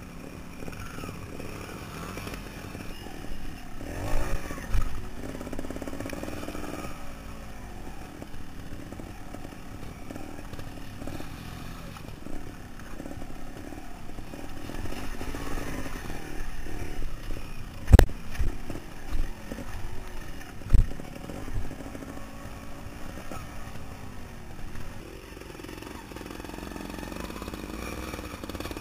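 Trials motorcycle engine being ridden over rough trail, its pitch rising and falling as the throttle is worked. A few sharp knocks cut through, the two loudest about two-thirds of the way through.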